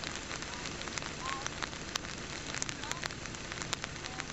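Steady outdoor hiss with many small crackling clicks scattered through it, and a few faint short chirps now and then.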